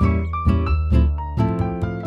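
Background music: a bright plucked-string melody in quick notes over a steady bass.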